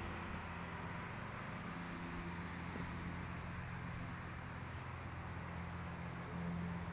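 A steady low engine hum under a faint hiss.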